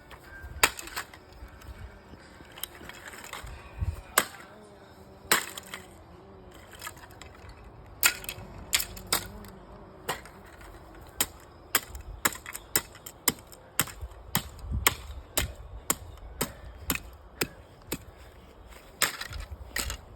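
An alarm clock being smashed: a series of sharp, irregular blows, a few spaced out at first, then coming faster, about two a second, from around eight seconds in.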